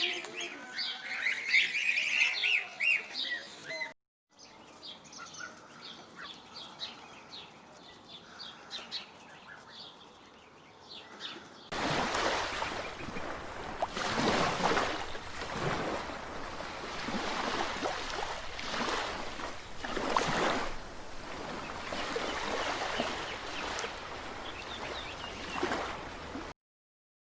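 Small birds chirping busily, fainter after a cut about four seconds in. After a second cut, partway through, this gives way to a louder rushing noise that swells and falls every second or two.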